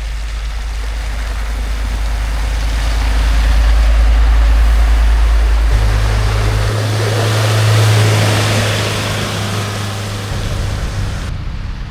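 Heavy vehicle engines running with a steady hiss of road noise, the sound swelling twice as vehicles pass close by; one engine's low hum gives way to another's higher hum about halfway through.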